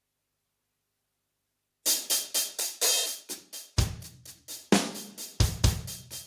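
Drum kit sound of a Korg Pa700 arranger keyboard: after about two seconds of silence, quick cymbal and hi-hat strokes start, and bass-drum hits join about two seconds later.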